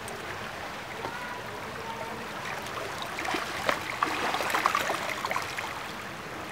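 Shallow, fast-flowing creek running over gravel and stones, a steady rushing of water. About three to five seconds in, a run of louder, irregular splashes and crackles comes over it.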